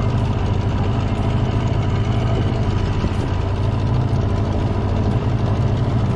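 Boat engine running steadily while under way, a continuous even drone.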